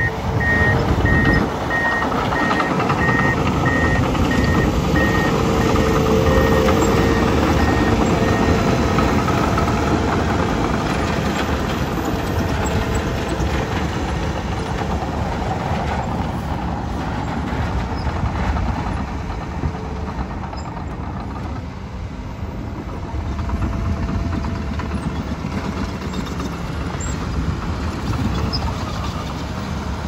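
Komatsu D51PX crawler bulldozer's diesel engine running steadily while it pushes dirt, with a reversing alarm beeping evenly at one pitch that stops about eight seconds in.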